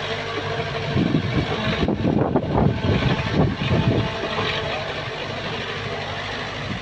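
Diesel engine of a small Kobelco Yutani SK03 tracked excavator running steadily under digging load. About two to three seconds in comes a cluster of knocks and rattles as the bucket tears into and lifts the soil.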